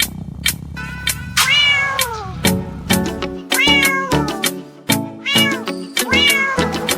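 Upbeat dance music with a steady drum beat, with cat meows over it: four meows, the first, about a second and a half in, long and drawn out.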